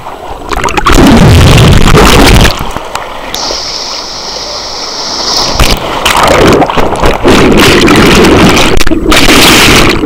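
Turbulent water of a pool rapids channel churning against a waterproof camera at and under the surface: very loud splashing and rushing, with a quieter, muffled stretch in the middle.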